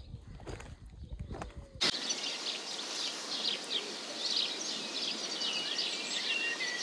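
Several small birds chirping and trilling over a steady outdoor hiss, starting abruptly about two seconds in. Before that there are faint low rumbles and knocks.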